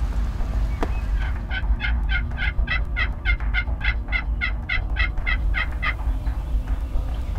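Turkey yelping: a long, evenly spaced run of about eighteen yelps at about four a second, starting about a second in and stopping about six seconds in, over a steady low rumble.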